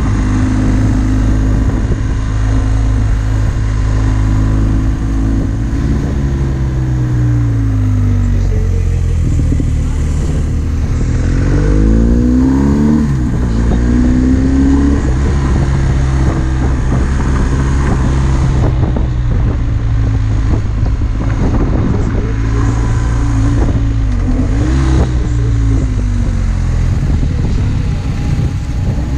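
Motorcycle engine heard from the rider's seat while riding, its pitch rising and falling several times with throttle and gear changes, over a steady rush of wind noise.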